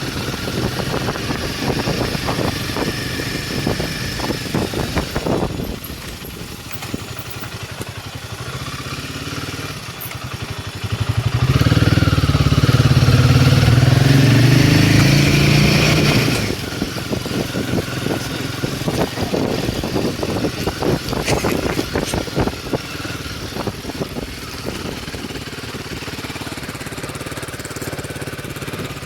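Royal Enfield Himalayan 450's single-cylinder engine being ridden at low revs with a throbbing beat. About halfway through, the rider opens the throttle for a few seconds and the pitch climbs, then drops back to low revs.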